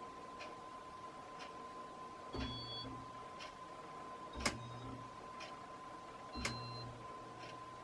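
Casablanca Panama ceiling fan being switched through its speeds during a test. Three sharp switch clicks come about two seconds apart, the middle one loudest, and each brings in a low motor hum that stays on near the end. Under it runs a steady high hum and a light tick about once a second.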